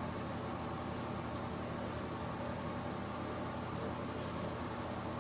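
Steady room tone: an even hiss over a low, constant hum, with no distinct sounds standing out.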